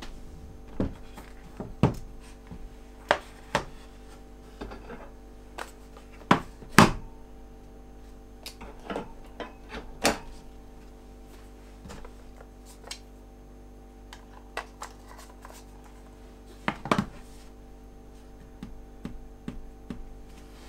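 Camera gear being set down and handled on a wooden tabletop: scattered knocks and clicks, loudest around six to seven seconds in and again near seventeen seconds, as batteries are pressed into a charger and a camera with lens is placed down. A steady low drone runs underneath.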